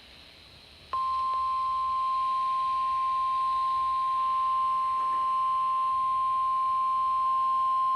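NOAA Weather Radio 1050 Hz warning alarm tone: one steady, high, pure tone that switches on about a second in and holds unbroken. It signals that a warning broadcast is about to follow.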